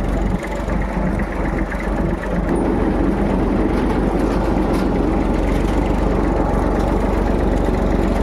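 Tractor's diesel engine running steadily under load while it pulls a tillage implement through ploughed soil, growing a little louder about two and a half seconds in.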